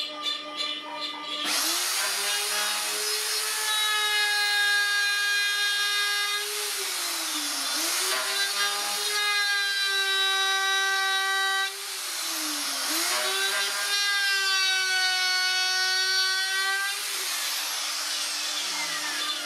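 Handheld plunge router starting up and milling a slot in the metal sole of a router-table fence: a loud, steady motor whine with a cutting hiss. The pitch sags twice as the bit bites in and recovers each time, then the router stops near the end.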